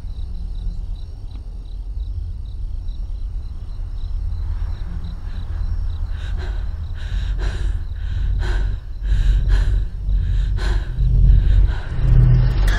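Tense film sound design: a deep rumbling drone that swells steadily louder, with crickets chirping faintly at first. From about six seconds in, a run of rhythmic pulses joins, building to the loudest point near the end.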